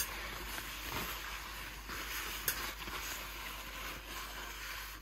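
Paper towel rubbing over the inside of a stainless steel electric skillet, a steady scrubbing with a light click about two and a half seconds in.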